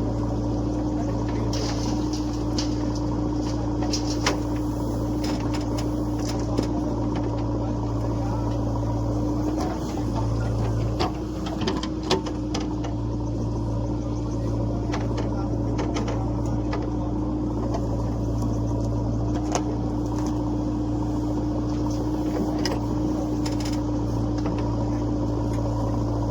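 Backhoe loader's diesel engine running steadily while loading mud, with a few sharp knocks scattered through.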